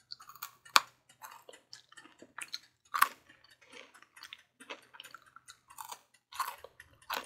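A person chewing air-fried sweet potato fries, with irregular crunchy clicks and smacks; the loudest come about a second in and about three seconds in.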